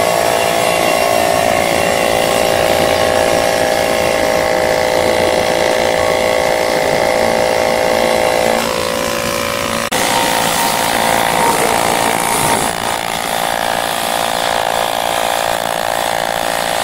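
TIG welding arc on an aluminium pipe joint, a steady even hum with a clear pitch and a hiss over it. It breaks off for an instant about ten seconds in and picks up again.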